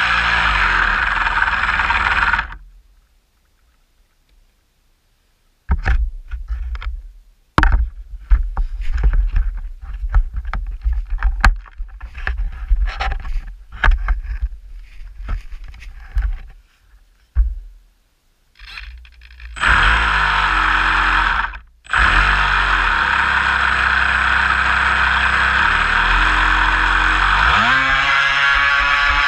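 Homemade RC boat's motor running steadily, then cutting out after about two seconds. While the boat drifts there are irregular knocks and slaps against the hull, then the motor runs again from about twenty seconds in, drops out for a moment, and rises in pitch near the end as the boat speeds up.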